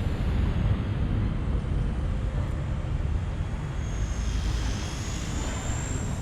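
Wltoys V911S RC helicopter in flight: a thin, high motor-and-rotor whine that rises in pitch about four seconds in and then wavers, over a strong steady low rumble.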